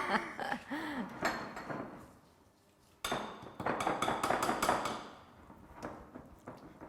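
Chocolate and egg being mixed by hand in a bowl: a utensil clinks rapidly and unevenly against the bowl in two spells, with a short pause between them.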